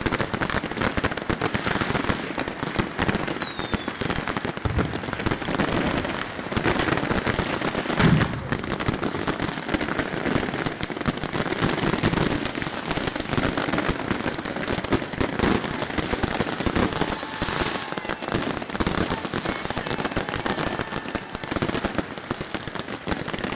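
A dense, unbroken barrage of New Year firecrackers and fireworks going off, rapid cracks and bangs overlapping, with one especially loud bang about eight seconds in.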